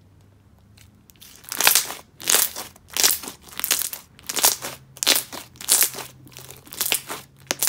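Thick red jelly slime with foam beads being squeezed and kneaded by hand, making sticky crackling and popping sounds in repeated bursts about twice a second, starting about a second and a half in.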